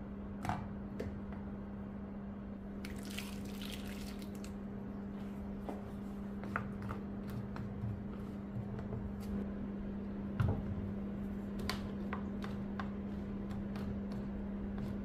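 Chestnuts cooking in a little water in a non-stick frying pan: wet bubbling and squishing, a short hiss a few seconds in, and scattered light knocks of a wooden spatula against the pan and chestnuts. A steady low hum sits underneath.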